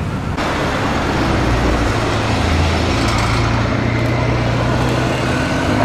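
Car engine and exhaust running amid road noise. A broad rush comes in about half a second in, with a steady low engine drone through the middle.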